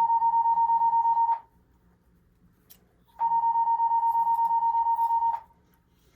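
Building alarm sounding: one high-pitched tone with a rapid flutter, on for about two seconds, off for about two seconds. It sounds twice, the first ending about a second and a half in, the second running from about three to five and a half seconds in.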